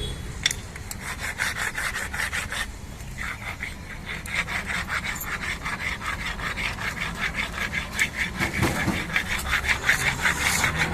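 Hand abrasive rubbing on a brake caliper part: a quick back-and-forth rasp of about three to four strokes a second, getting louder and more even in the second half.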